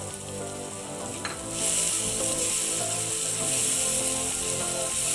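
Masala frying in hot oil in a wok, stirred with a spatula. About a second and a half in, the sizzle turns suddenly louder and hissing as a cup of water goes into the hot pan.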